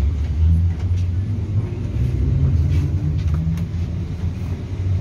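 Interior running noise of an EP2D electric commuter train in motion: a steady low rumble with a hum that rises and falls a little in pitch.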